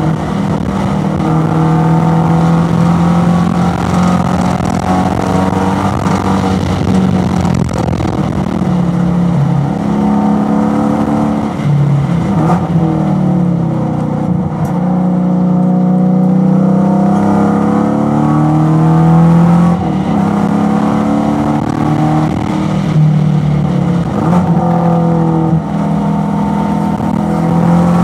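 Race car engine heard from inside the car at racing speed, running at high revs, then dropping in pitch as the car brakes and downshifts from fourth to third gear about ten seconds in, and climbing again under full acceleration out of the corner.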